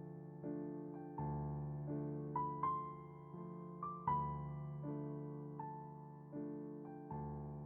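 Slow, gentle piano music: soft chords struck about once a second and left to ring and fade, with a few higher melody notes over them.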